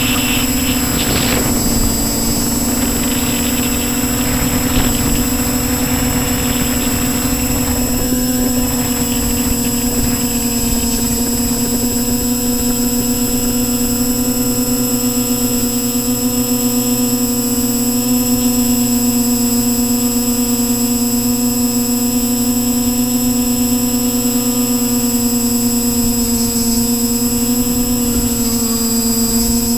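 Quadcopter's electric motors and propellers whining steadily at one pitch, heard from the camera on board, with a rougher rushing noise over the whine for the first eight seconds or so. Near the end the pitch dips briefly.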